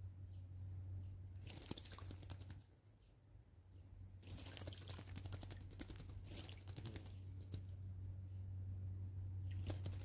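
Kurrichane thrush bathing in a shallow water bath, its wing-flapping splashing in bursts: about a second and a half in, again from about four to seven seconds, and again near the end. A steady low hum runs underneath.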